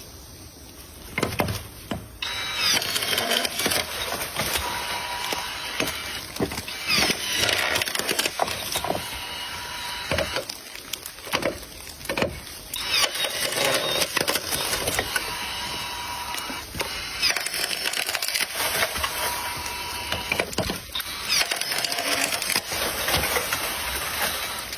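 Tree being cut: wood cracking and splintering, with many sharp irregular cracks and knocks over a steady noisy hiss, easing off briefly twice.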